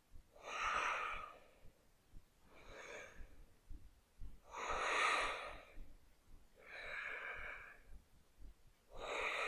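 A woman's audible breathing through a yoga twist: five soft breaths about two seconds apart, her exhales timed to deepen the twist.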